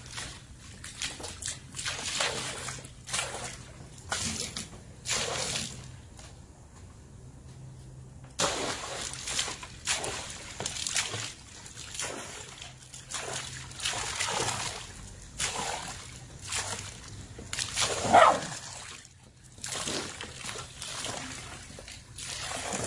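Bucket of pool-winterizing chemical mixed with water being poured into the pool, splashing and sloshing on the surface in uneven surges. There is a quieter gap of about two seconds around the middle, and the biggest splash comes near the end.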